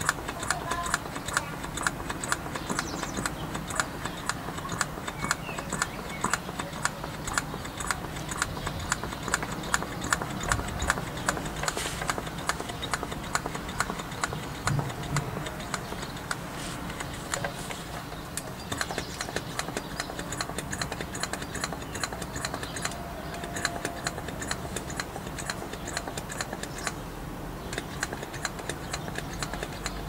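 Rapid, steady mechanical ticking, several ticks a second.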